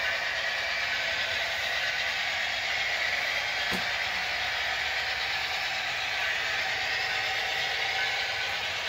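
HO-scale model train running on the layout: a steady whirring, rolling noise, with a single click about four seconds in.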